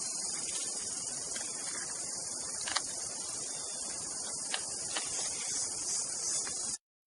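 Steady, high-pitched chorus of insects, with a few faint short sharp sounds over it. It cuts out abruptly for a moment near the end.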